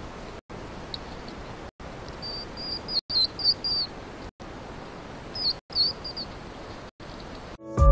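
Baby hedgehogs giving high-pitched squeaking chirps, in two short runs of several calls about two and five and a half seconds in, over a steady hiss.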